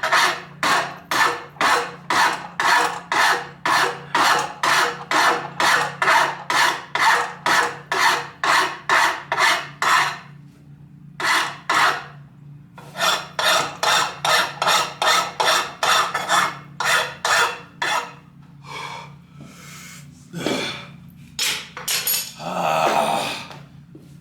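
A hand file is pushed across the steel blade of a forged Bowie knife, filing the bevels in steady strokes about two a second. The strokes break off briefly about ten seconds in, then resume, and the last few seconds hold slower, irregular scrapes.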